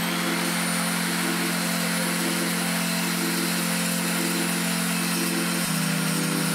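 A compact electric circular saw running steadily while cutting through an MDF panel. Its tone shifts slightly about five and a half seconds in.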